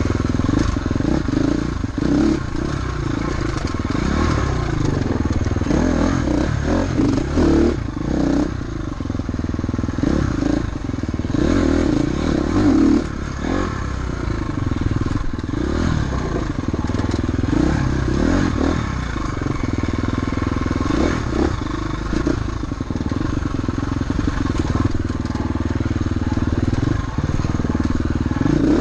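Motorcycle engine running continuously, its revs rising and falling every second or two as it rides.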